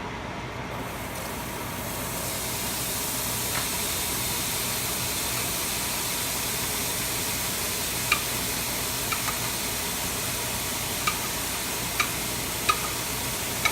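Chopped vegetables, onion among them, frying in olive oil in a skillet: a steady sizzle that swells about a second or two in. From about eight seconds in, a utensil clicks against the pan several times as the vegetables are stirred.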